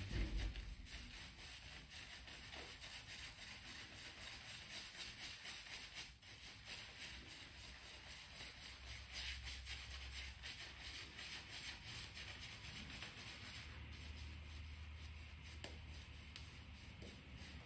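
Synthetic shaving brush working Arko stick shaving soap into a lather directly on a wet face: a faint, steady, rapid bristly rubbing.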